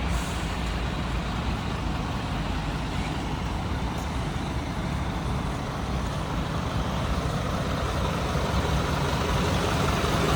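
Scania P250 truck's five-cylinder diesel engine idling steadily.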